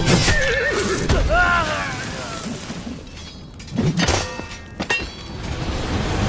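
Battle-scene sound effects: several heavy thuds and crashes, with a man's drawn-out cry in the first two seconds, over background music.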